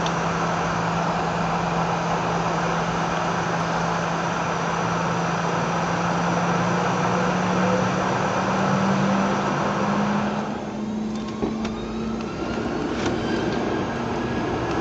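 Boeing 717's twin rear-mounted BR715 turbofans, heard from inside the cabin: a loud steady hum with engine hiss that creeps up in pitch. About ten seconds in, the hiss drops away and a rising whine comes in as the engines spool up for the takeoff roll.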